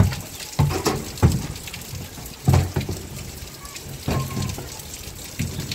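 Plastic jerrycans knocking against each other and the metal shelf as they are set down and shifted, about six knocks at uneven intervals, over steady rain.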